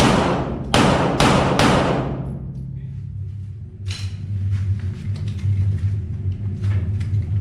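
Semi-automatic pistol shots ringing through an indoor range: a quick string of four, the last under two seconds in, each shot followed by a booming echo that dies away. A steady low hum runs underneath.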